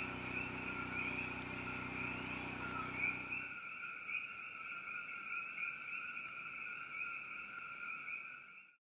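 Night chorus of insects and frogs: steady high-pitched trilling with small chirps on top. A low steady hum underneath stops about three and a half seconds in, and the chorus fades out near the end.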